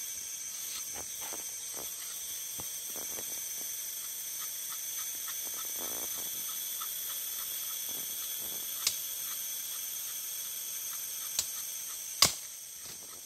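Steady chorus of forest insects, several high-pitched tones held without a break. A few sharp knocks or clicks sound near the end, the loudest about a second before it finishes.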